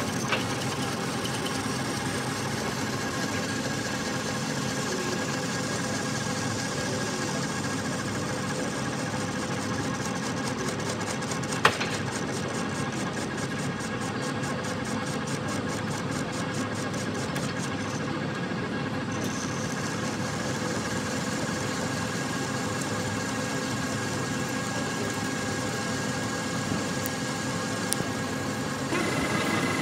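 Metal lathe running steadily as a single-point tool turns down wire-weld buildup on a steel electric motor shaft, machining the rebuilt journal back to size. There is one sharp click about twelve seconds in.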